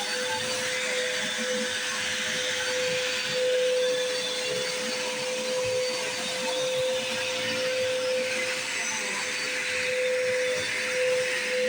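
Bissell Powerforce Bagged upright vacuum cleaner running, with a steady motor whine over a rush of air that swells and dips slightly in loudness.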